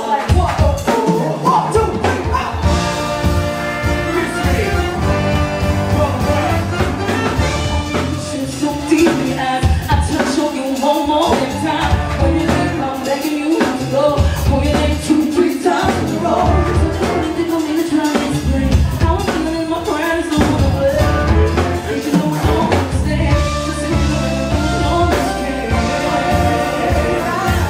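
Live band playing a song with a singer over drums and bass.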